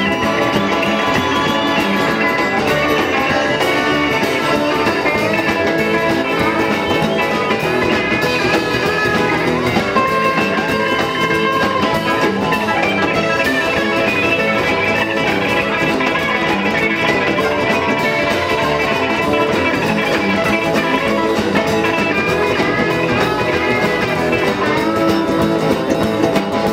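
Live rockabilly band playing an instrumental break on guitars, a strummed acoustic rhythm guitar under wandering lead guitar lines, with no singing.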